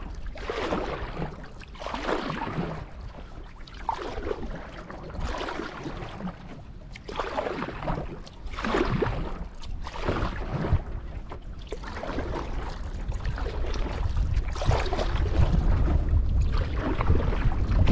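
Canoe paddle strokes pulling through lake water, a swishing splash about every one and a half to two seconds. A low wind rumble on the microphone grows louder in the second half.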